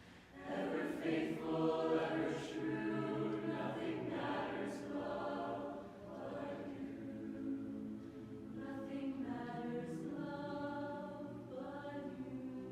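Youth mixed barbershop chorus singing a cappella in close harmony, holding sustained chords with sharp sibilant consonants, after a brief break right at the start.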